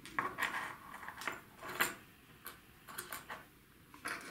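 Small metal spoon lures with treble hooks clicking against a hard tabletop and scale as they are picked up and set down: a string of light, irregular ticks.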